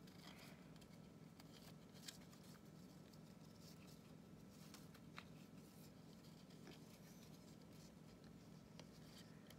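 Near silence: faint rustling and crinkling of paper being folded and pressed by hand, with two light ticks about two and five seconds in, over a low steady hum.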